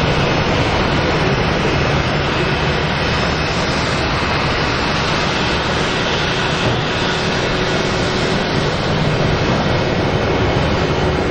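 Jet engines of an Airbus A319 running at low taxi power as it rolls by: a steady rushing noise with a low hum underneath.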